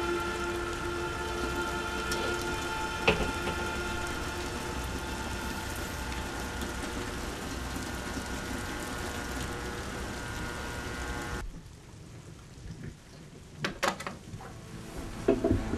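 Steady rain falling, with a sharp knock about three seconds in. The rain cuts off abruptly about three quarters of the way through, leaving a quieter stretch with a few knocks near the end.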